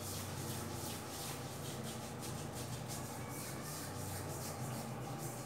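Hands rubbing non-foaming face wash over a stubbled face, a soft scratchy rub repeated a few times a second. A faint steady low hum runs underneath.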